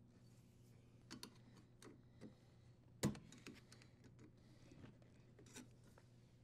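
Faint scattered clicks and taps of metal on metal, with one sharper click about three seconds in: a flat-head screwdriver pushing against the lugs of the strain relief locknut to tighten it in the dishwasher's junction box.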